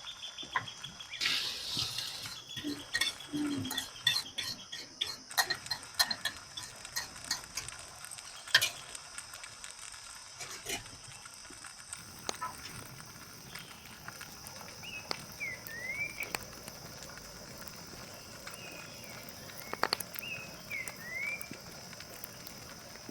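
Scattered light knocks and clatter of cooking preparation over a steady high insect drone, with a few short rising-and-falling chirps twice in the second half.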